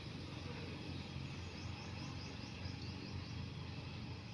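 Steady background noise with a low rumble. In the middle comes a quick run of short, high chirps, about five a second, lasting about two seconds.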